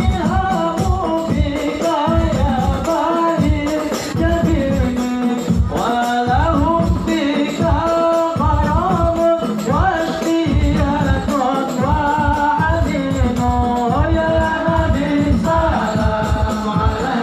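Group singing of devotional Islamic sholawat over a steady beat of hand-played frame drums, amplified through a PA loudspeaker.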